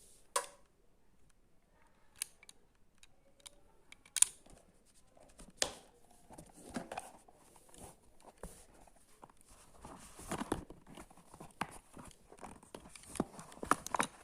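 Packaging being handled and opened: a string of sharp clicks and snips, with crinkling, rustling noise that grows busier in the second half.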